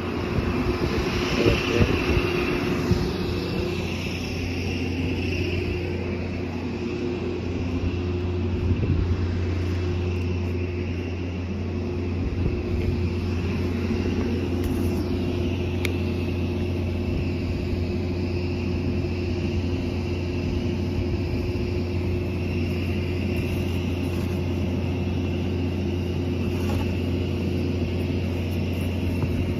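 A heavy vehicle's engine idling steadily: a continuous low drone with a constant hum above it.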